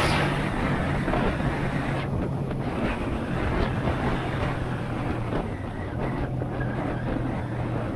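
Honda Shadow 125's small V-twin engine running at a steady cruising speed, with wind buffeting the microphone over it.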